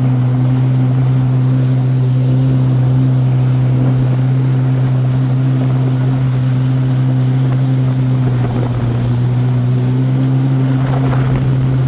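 Personal watercraft engine running at a steady cruising pace, one constant pitch that holds throughout, over the rush of water and spray along the hull.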